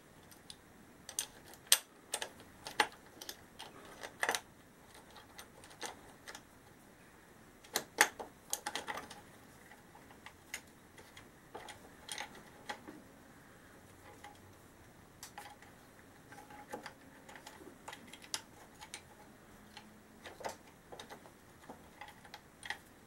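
Light, irregular metallic clicks and taps as the exhaust cam follower assembly is handled and seated onto a Honda XL1000 Varadero cylinder head, with scattered knocks of metal on metal, the sharpest about 2 s and 8 s in.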